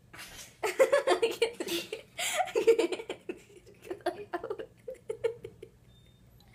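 A girl's fit of giggling in quick choppy bursts, strongest in the first few seconds and trailing off into smaller giggles before stopping near the end.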